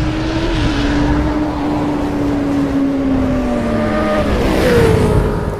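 Motorcycle engine sound effect at high revs. Its pitch sags slowly, then about four and a half seconds in it jumps higher and falls away again.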